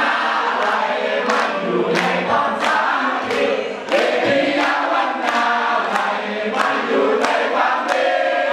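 A crowd of many voices singing a song together along with a band, over a steady beat that falls about every two-thirds of a second.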